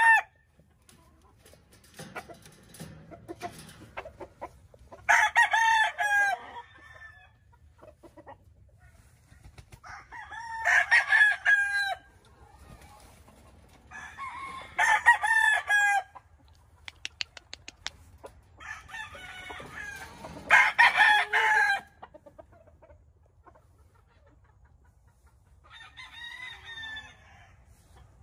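Gamecock stags (young roosters) crowing, about five crows of a second or two each, coming every five seconds or so. The last crow, near the end, is fainter.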